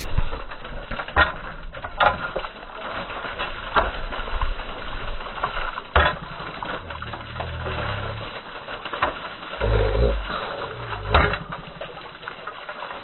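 Water from a garden hand pump pouring and splashing onto a metal grate and the burnt paper beneath it, dousing it, with a few sharp knocks and some low thumps along the way.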